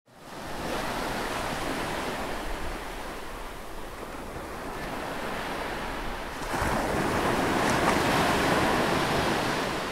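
Ocean surf: waves washing in as a steady rush that fades in at the start and swells louder about six and a half seconds in.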